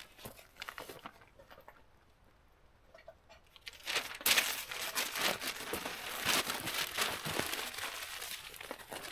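Paper being crumpled and torn by hand: a few faint crinkles, then about four seconds in a long spell of loud, dense crinkling.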